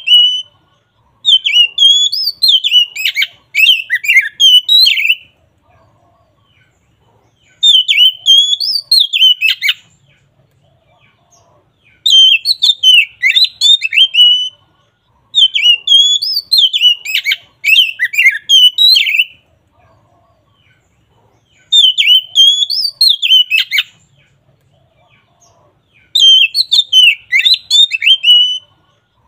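Oriental magpie-robin (kacer) singing its loud, full 'ngeplong' song: quick, varied high whistled phrases delivered in about six bouts of two to four seconds each, with short pauses between them.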